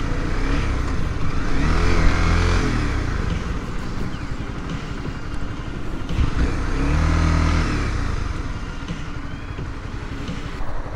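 A 250 cc motorcycle engine under way, accelerating twice with its pitch climbing about two seconds in and again about seven seconds in, over a steady rush of wind on the microphone.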